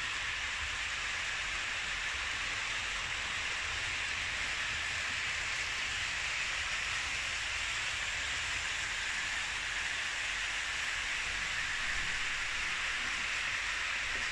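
Märklin H0 model trains running on the track: a steady rolling hiss and rumble of wheels and small electric motors.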